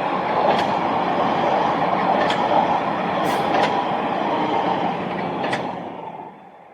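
A train passing on the line: a steady rumble of wheels on rail, broken by a few sharp clicks. It fades away near the end.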